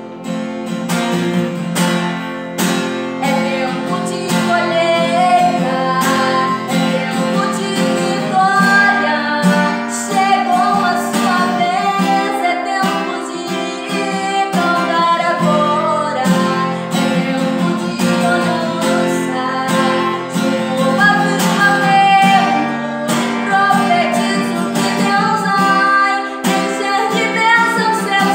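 Music: an acoustic guitar strummed steadily, with a woman singing a melody over it.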